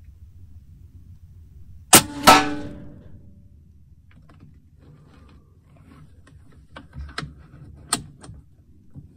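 Benjamin Bulldog .457 big-bore air rifle, fitted with a DonnyFL Emperor moderator, fired once: a sharp report about two seconds in, followed about a third of a second later by a second loud strike that rings briefly. A few light clicks and knocks follow near the end as the rifle is handled.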